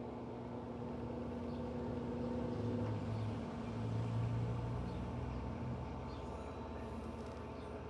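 Electrolux LED14 washing machine in its intermediate spin: the motor and drum run with a steady hum, swelling a little about halfway through.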